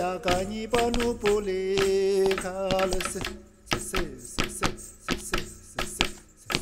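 Tibetan drum dance music: sung melody with a wavering, ornamented line over drum strikes. A little over three seconds in the singing drops away and the drums carry on alone, striking about three times a second.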